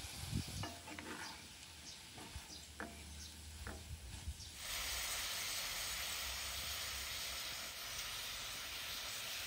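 Green beans sizzling in a frying pan, with a wooden spatula stirring and knocking against the pan in the first few seconds. About halfway through, a steadier, louder sizzle takes over.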